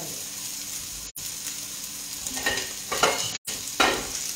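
Artichokes and red prawns frying in a pan on the stove, a steady sizzle. A few louder clatters come a little past halfway, and the sound cuts out for an instant twice.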